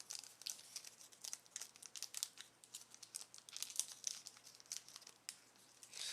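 Crinkling and tearing of a Chronicles football card pack's wrapper being worked open by hand: a long, irregular run of sharp crackles. The pack is proving hard to open.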